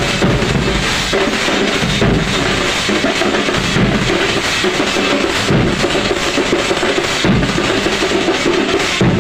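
A group of large double-headed barrel drums beaten with sticks, playing a loud, dense, unbroken rhythm.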